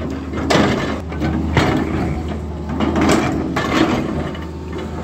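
Tata Hitachi Zaxis 220 LC excavator working: its diesel engine runs with a steady low hum while the bucket teeth scrape and crunch through stony soil in several irregular bursts.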